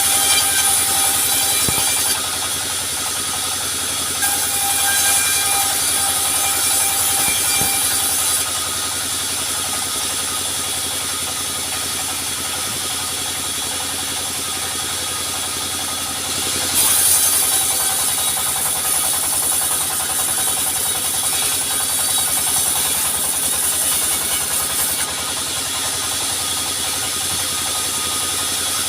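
Sawmill running: its engine hums steadily throughout, while the saw cuts through wood in louder, high-pitched stretches, from about 4 to 8 seconds in and again from about 17 to 25 seconds in, with shorter cuts at the start and near the end.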